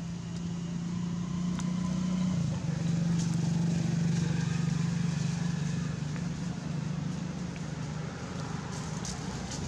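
A motor engine running steadily with a low hum, its pitch shifting slightly a couple of times, and a few faint clicks over it.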